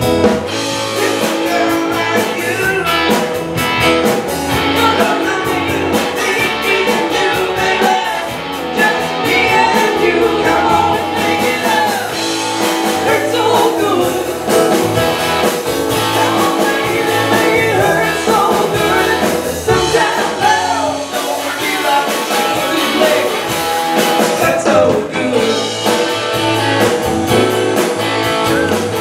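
A live rock band playing a song: a woman singing lead over electric guitar, bass, drum kit and keyboards.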